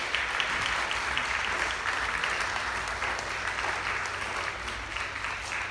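Audience applauding: dense, even clapping that eases slightly toward the end.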